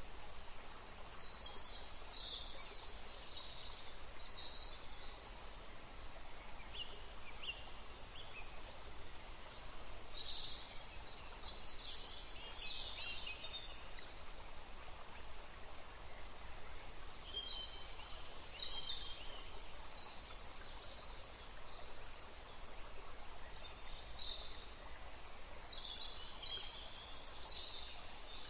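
Birds chirping in four short bouts over a steady background hiss.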